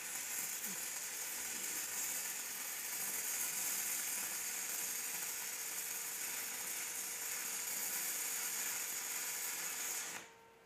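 Shielded metal arc welding with a 3/32" E6010 electrode at 80 A DCEP on mill-scaled mild steel plate: a steady crackling, hissing arc that stops abruptly about ten seconds in as the arc is broken. The onlooker thinks the amperage is set too high.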